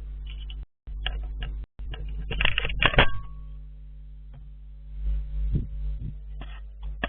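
Bursts of scratching, scraping and knocking close to a trail camera's microphone, loudest about two to three seconds in, over the camera's steady low hum. The sound briefly cuts out twice near the start.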